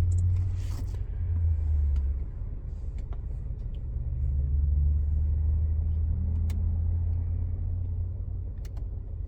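A low rumble that swells and fades, with a few faint clicks over it.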